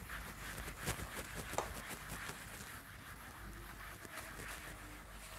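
Faint rubbing of a cloth wiping a whiteboard clean, with a couple of light knocks about a second in.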